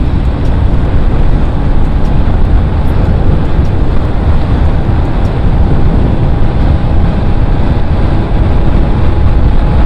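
Loud, steady wind blast buffeting a helmet-mounted microphone on a motorcycle moving at speed, a deep rumble with the bike's engine running underneath.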